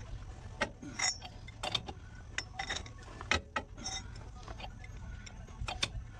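Hand ratchet clicking irregularly while turning the screw of a C-frame ball joint press, forcing the old lower ball joint out of a Jeep Cherokee XJ steering knuckle; some clicks ring briefly like struck metal.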